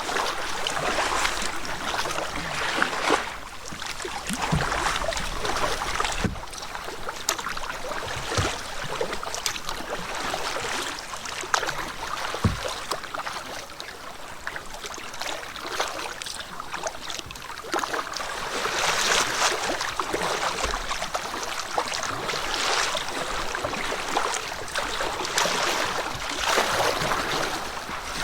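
Canoe paddling: water splashing and rushing with each paddle stroke, in swells every few seconds, with a few sharp knocks.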